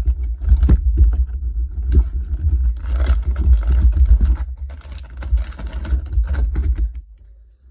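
Plastic bait packaging of soft-plastic fishing lures crinkling and scraping as it is handled, over a heavy low rumble of handling noise. The sound dies away about a second before the end.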